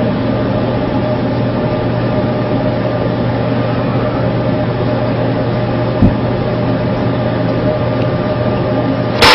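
Steady mechanical hum with fixed droning tones, as of a warship's engines and ventilation on deck. A single low thump comes about six seconds in. At the very end the naval cannon's burst of fire begins with a sudden loud blast.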